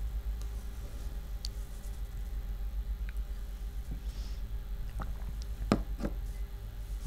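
Small objects handled on a wooden tabletop: a few faint clicks and taps, then two knocks close together a little under six seconds in as a drinking glass is picked up and set back. A low steady hum underneath.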